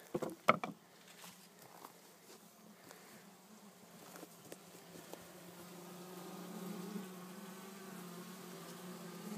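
Honeybee colony buzzing inside a top bar hive, a steady hum that grows louder over the second half. A couple of sharp knocks in the first second.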